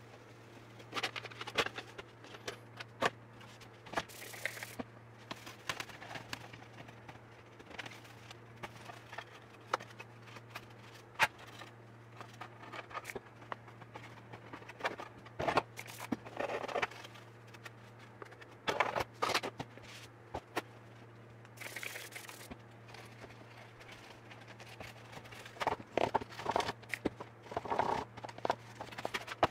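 Paper towel rubbing and scrubbing the plastic cover of a Singer Simple sewing machine, cleaning off grime, in irregular scratchy strokes with scattered knocks of the plastic shell being handled. A steady low hum underneath.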